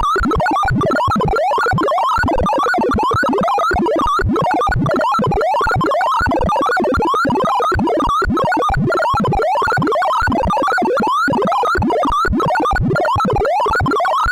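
Sorting-algorithm sonification: a rapid, unbroken stream of synthesized beeps whose pitch follows the values being compared, forming many quick rising sweeps, several a second.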